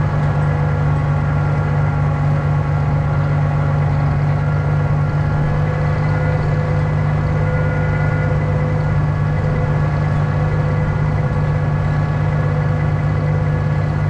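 Tractor engine idling steadily.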